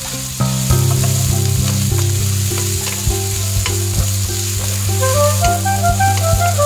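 Onions and meat sizzling as they are sautéed in a nonstick wok, with a wooden spatula knocking and scraping against the pan as it stirs. Background music with low held notes plays throughout, and a higher melody joins about five seconds in.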